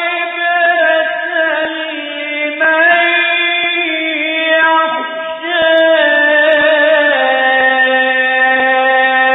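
A man's voice reciting the Quran in the melodic mujawwad style, holding long drawn-out notes that shift pitch a few times, stepping down about seven seconds in. The recording is old and has no high end.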